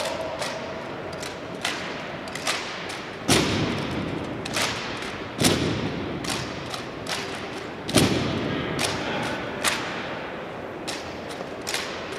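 A drill team handling M1903 Springfield rifles in unison: a string of sharp slaps and thuds as hands strike the rifles and the rifles are caught and set down, each ringing out in a large echoing hall. Several strikes stand out louder than the rest, a few seconds apart.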